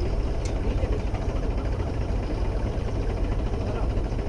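Tractor diesel engine running steadily, driving a pulley-wheel water pump. There is a short click about half a second in.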